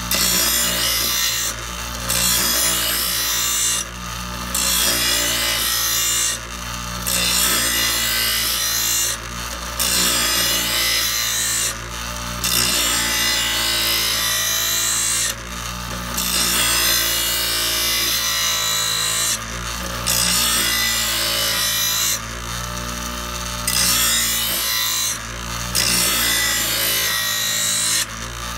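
Ryobi 6-inch bench grinder running while a steel lawnmower blade is pressed against its grinding wheel in repeated sharpening passes: a loud grinding rasp over the motor's steady hum, broken by short pauses every two to four seconds as the blade is lifted off and set back.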